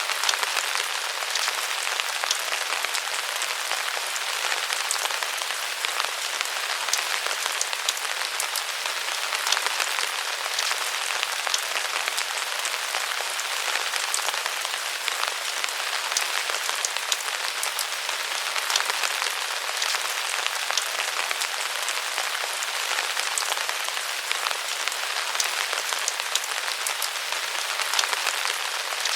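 Steady rain falling under the eaves: a continuous hiss of rainfall with many close drips and drops tapping.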